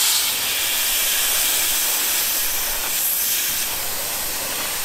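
Compressed CO2 at about 250 psi venting from a mini-split heat pump's refrigerant line set through the charging hose: a loud, steady hiss that eases slightly as the pressure falls. This is the test gas being released at the end of a pressure leak test.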